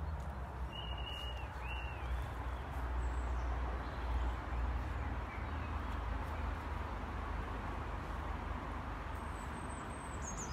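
Steady low outdoor rumble and hiss, with small birds calling over it: two short chirps about a second in, and a quick, high, falling run of chirps near the end.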